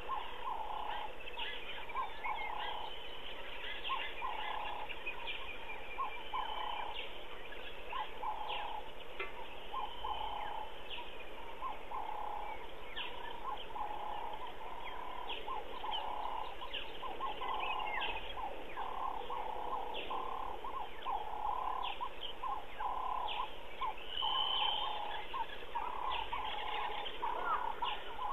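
Bush wildlife calling: a steady run of short repeated calls, about one a second and quickening near the end, with scattered higher bird chirps and whistles over them.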